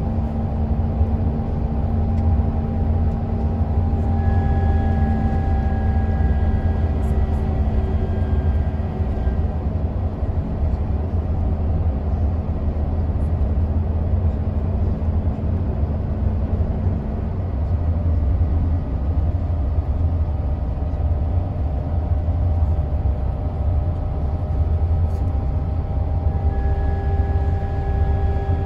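Mercedes-Benz Travego 15 SHD coach heard from inside the passenger cabin while driving: a steady low drone of engine and road, with faint whining tones above it that drift slowly lower.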